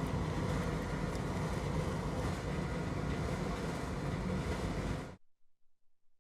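Steady rushing background noise that cuts off abruptly about five seconds in, leaving silence.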